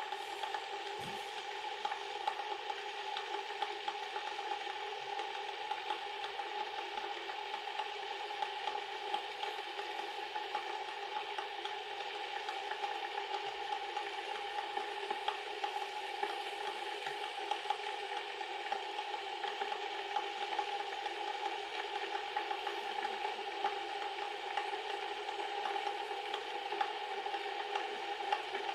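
Electric kettle heating water: a steady rushing hum with dense, rapid crackling and ticking as the water works up toward the boil.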